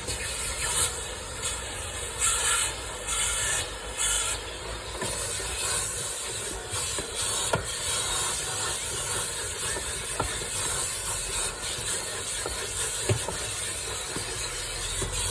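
Vacuum cleaner running as it hoovers a car's interior, the hiss of the suction rising and falling as the nozzle is moved about, with a few light knocks.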